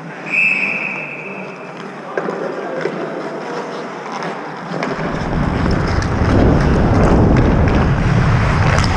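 A referee's whistle gives one steady blast of about a second near the start, signalling the next shootout attempt. After that comes open ice-rink noise, and about halfway through a heavy rumble of wind on the helmet-mounted camera's microphone sets in.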